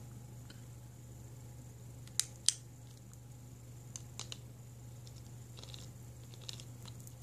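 Scattered light clicks and taps as a metal-studded strap is handled close to the microphone. Two sharper clicks come about two seconds in, then a few softer ones, over a faint low steady hum.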